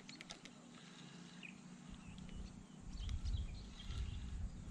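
A spinning reel being cranked to retrieve a lure, with a quick run of soft clicks at the start. Birds chirp a few times, and wind rumbles on the microphone from about three seconds in.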